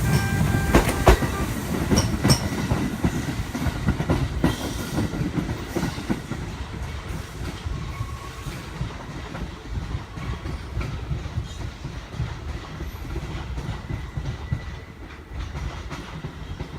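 Kintetsu electric train moving through the station, its wheels clicking over the rail joints over a low rumble, growing fainter as it moves away.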